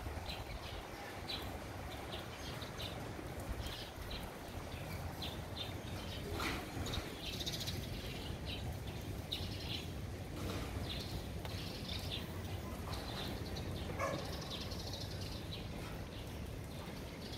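Faint outdoor ambience: small birds chirping off and on over a low, steady background rumble.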